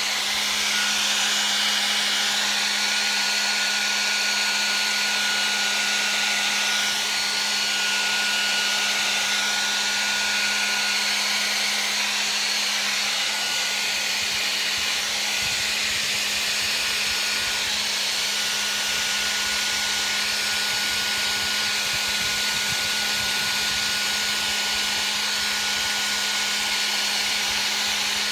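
Handheld hair dryer running steadily, blowing air onto wet acrylic paint on a canvas: an even rush of air over a low motor hum, with a thin steady whine above it.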